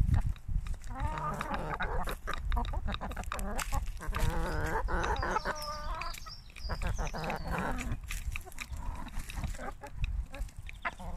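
Flock of chickens clucking and calling, several birds' voices overlapping, busiest for the first eight seconds and thinning out after.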